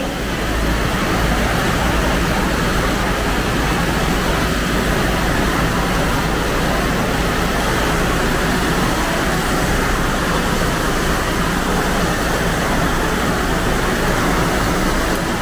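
Rain falling on a sheet-metal roof overhead: a steady hiss that does not let up.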